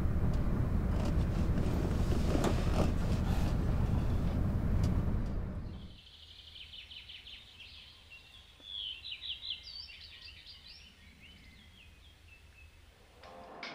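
A car driving, a steady low rumble of engine and road heard from inside the cabin, which fades out about five seconds in. Then, over a quiet background, birds chirping, with a quick run of high chirps in the middle.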